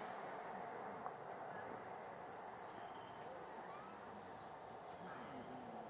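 Insects, probably crickets, keeping up a steady high-pitched shrill over a faint outdoor hiss, with one small click about a second in.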